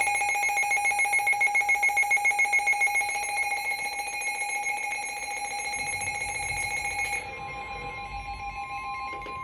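Emergency alert tones announcing a severe thunderstorm warning: a loud electronic alarm that pulses rapidly, about seven beats a second, for the first three seconds, then holds as a steady tone. About seven seconds in it drops in level and a fainter, slightly higher tone joins.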